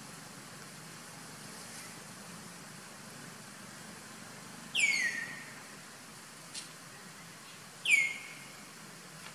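A bird calls twice, about three seconds apart, each call a short sharp note sliding down in pitch. A faint tick falls between the two calls.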